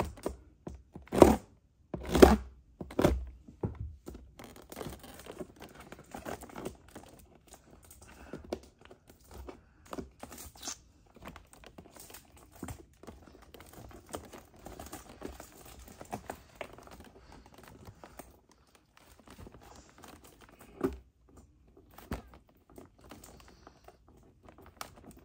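Toy packaging being pulled at and torn open by hand: three loud thumps in the first few seconds, then scattered crinkling and tearing, with another thump near the end.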